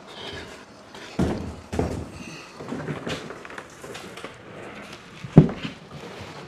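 Hollow plastic knocks and bumps from a Hobie Outback kayak hull being hoisted onto wall-mounted racks and knocking against them and the wall, with shuffling handling noise between. A few knocks come in the first three seconds, and the loudest sharp knock comes about five seconds in.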